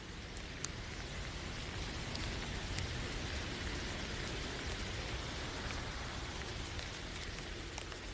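Steady rainfall, an even hiss with a few scattered sharp drop ticks.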